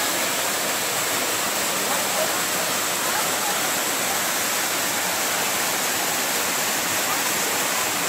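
Steady rush of a two-tiered waterfall cascading over rock ledges into a pool.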